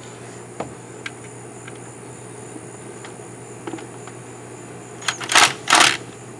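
Scattered light clicks of tools and parts being handled, then two short, loud scraping sounds in quick succession near the end, as a brace is refitted on an outboard motor.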